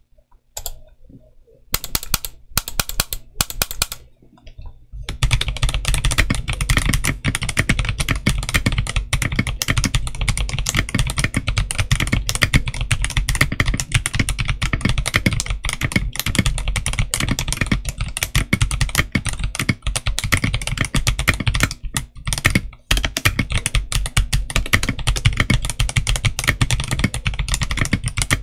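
Stock Machenike K500F 75% mechanical keyboard with tactile switches and translucent polycarbonate OEM-profile keycaps being typed on. A few scattered keystrokes, then continuous fast typing from about five seconds in.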